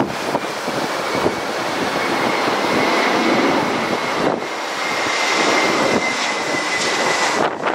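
Airbus A321's CFM56 jet engines on landing approach passing close by: a loud rushing noise with a high whine that slides slowly down in pitch as the airliner goes past.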